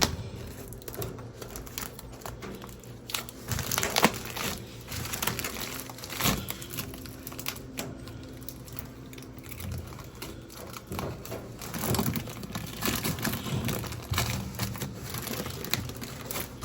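Thin blue plastic protective film being picked, scratched and peeled off a stainless steel microwave's casing: irregular crinkling and crackling with scattered sharp clicks, the loudest about four seconds in.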